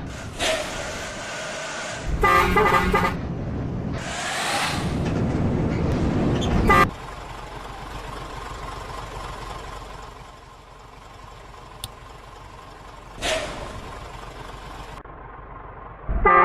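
Bus 'basuri' telolet horn sounding a short trilling burst of several notes at once, loudest about two seconds in. A broad rushing noise follows and cuts off suddenly, and there is another short burst later.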